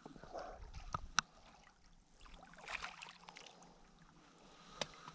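Faint water splashing and lapping as a small hooked bass is brought in to a rocky lake shore, with a few sharp clicks about a second in and near the end.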